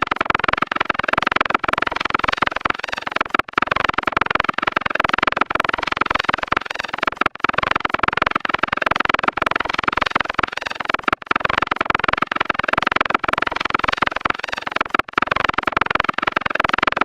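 Electronically vocoded sound effect: a dense, choppy, continuous sound with a steady band in the middle range and many brief dropouts.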